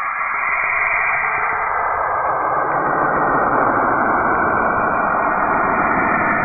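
Saturn's radio emissions converted into sound: a steady, static-like rushing noise that grows louder and fuller, reaching down into the low range, over the first two or three seconds.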